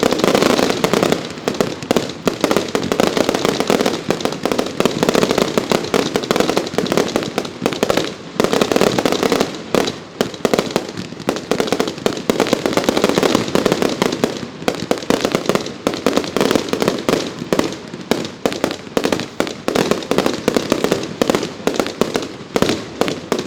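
Professional fireworks display: a dense barrage of loud reports going off in rapid succession, with barely a pause.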